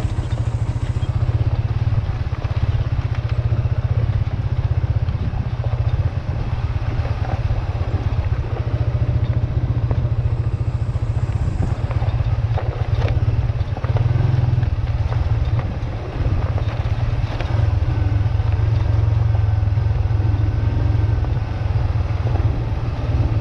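A vehicle travelling along a road, its steady running mixed with heavy low wind rumble on the microphone.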